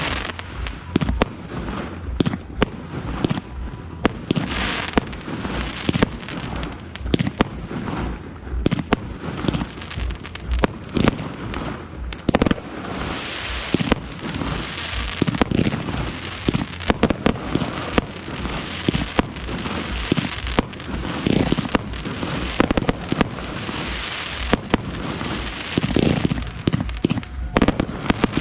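Fireworks display: sharp bangs of bursting shells, several a second, over a continuous dense crackle that thickens in long stretches around the middle and later on.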